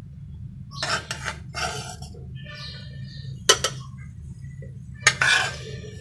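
Metal spatula scraping and clinking against a frying pan and a plate as egg-and-vegetable fry is lifted out and laid down. There are a few short scrapes about a second in, a sharp clink about three and a half seconds in, and another scrape a little after five seconds.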